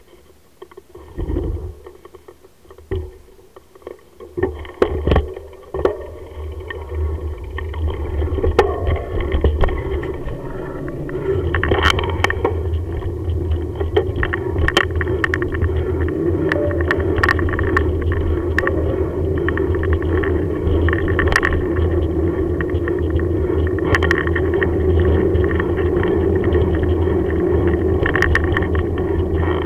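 Bicycle with knobbly cyclocross tyres rolling over rough tarmac, picked up by a camera mounted on the bike: a few separate knocks as it gets going, then a steady rumble that builds over the first ten seconds, with sharp rattles and clicks from the bike jolting over bumps.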